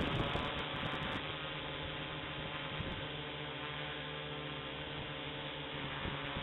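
Ideafly I-Fly4 quadcopter's electric motors and propellers whirring in flight, a steady hum with several pitched tones that shift slightly as it manoeuvres, heard from the camera mounted on the quad.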